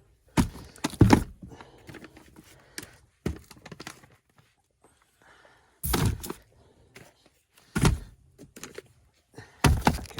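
Several separate thuds and knocks at irregular intervals, with quiet gaps between them, from things being handled and moved about.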